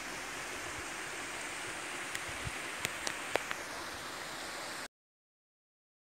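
Steady rushing of water spilling over a small weir into a stream, with a few short sharp ticks past the middle. The sound cuts off abruptly near the end.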